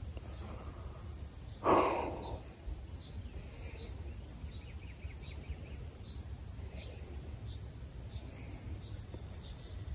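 Steady high-pitched drone of insects in the woods, with a faint chirp repeating about twice a second. A brief, louder rustling noise comes about two seconds in.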